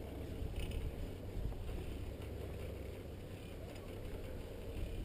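Steady low rumble and hiss while riding an open chairlift: wind buffeting the microphone, with the lift running underneath.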